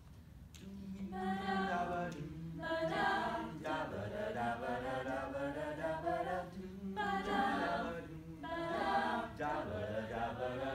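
A mixed-voice high-school a cappella group singing several parts at once, entering about a second in after a brief hush and going on in phrases.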